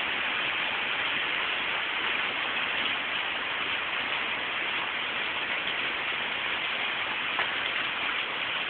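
Heavy rain falling steadily, an even hiss with scattered drop ticks.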